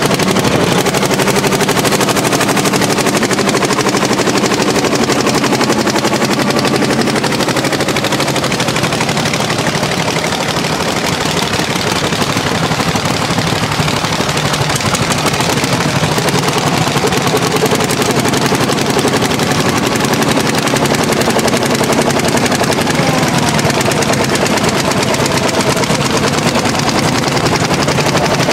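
Landini hot-bulb tractors' single-cylinder two-stroke engines pulling plows under heavy load, a loud, steady run of rapid exhaust beats.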